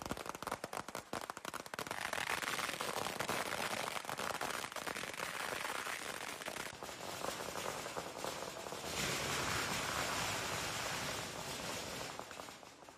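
Strings of firecrackers going off in a dense, continuous crackle of rapid bangs, dying away near the end.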